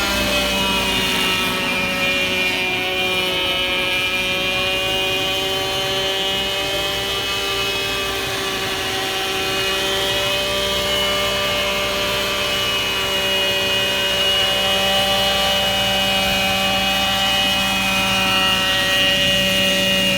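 The 27cc petrol engine of a 6-channel RC helicopter running steadily in flight. Its note drifts slightly up and down in pitch as the throttle changes.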